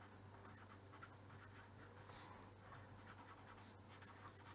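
Marker pen writing on paper: faint, irregular scratchy strokes, over a faint steady low hum.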